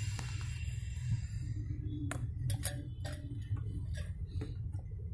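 Scattered light clicks and taps of hands handling ice and water inside a refrigerator's iced-up freezer section, over a steady low hum.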